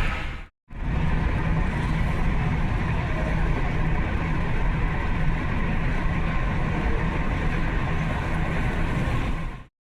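Hyundai Genesis Coupe being driven, heard from inside the cabin with the windows down: a steady mix of engine, tyre and wind noise. It cuts to silence briefly about half a second in and stops just before the end.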